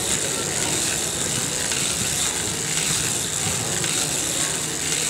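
1904 hand-cranked circular sock knitting machine being cranked, giving a steady mechanical clatter.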